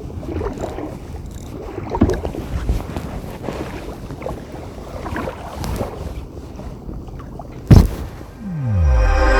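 Gusty wind buffeting the microphone with uneven rumbling and small knocks, then one loud knock near the end. A falling tone follows just before music begins.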